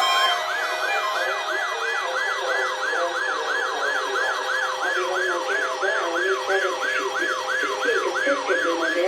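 Electronic siren in a fast yelp pattern: a repeating falling sweep, about two to three a second, with a fainter high warbling tone over it, cutting off at the end.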